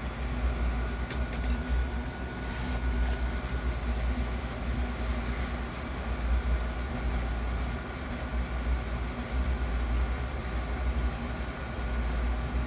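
A steady low hum of some running machine, with faint thin whining tones held above it.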